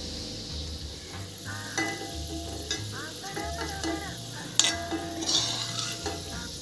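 Sliced onions sizzling in hot oil in a steel kadai as a steel ladle scrapes through them and lifts them out, with scattered clinks of metal; one sharp clink comes about two-thirds of the way in. Faint background music runs underneath.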